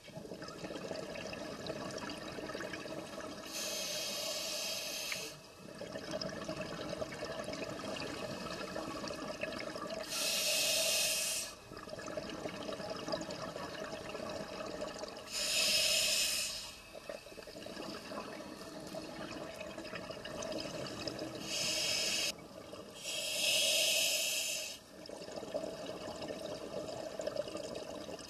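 Scuba regulator breathing underwater: five loud rushes of exhaled bubbles, each lasting a second or two, spaced about five to six seconds apart, over a steady lower hiss in between.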